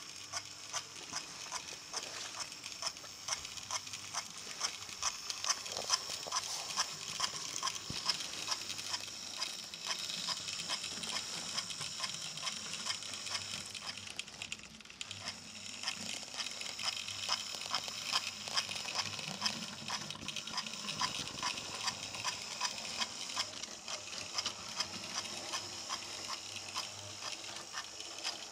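Model steam locomotive (Hornby B12 class) running along the track, its simple motor whirring while the tender's primitive sound unit makes a fast, regular ticking chuff. The motor hum drops out briefly twice, around the middle and again about two thirds of the way in.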